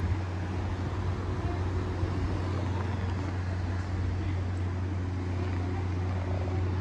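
A steady low hum that holds one pitch, over faint background room noise.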